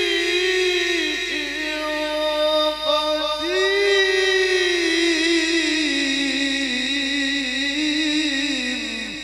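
A man's solo voice reciting the Quran in the melodic tilawah style, amplified through a PA. He holds long ornamented notes with a wavering pitch, takes a short breath about three seconds in, then lets a long note sink in pitch and fade away at the end.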